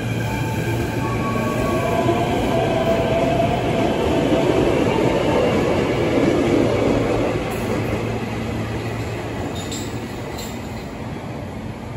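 Electric commuter train pulling out of the station: the motor whine rises in pitch over the first few seconds over the rumble of wheels on the rails. It is loudest around the middle and fades toward the end, with two short sharp clicks near the end.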